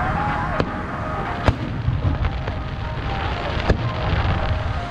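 Aerial fireworks shells bursting: about four sharp bangs roughly a second apart, the loudest about a second and a half in, over a steady low rumble of booms.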